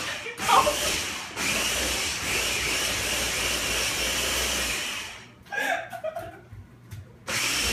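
Small electric countertop blender running with a steady whir, blending a thick, chunky fruit smoothie; it stops about five seconds in and starts again just before the end.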